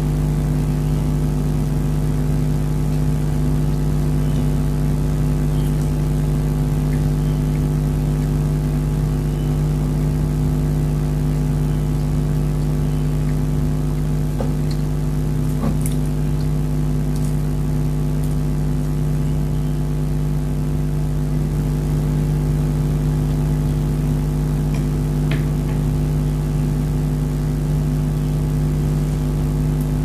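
Steady mechanical drone of a running motor, holding one pitch, with a few faint clicks around the middle and again near the end.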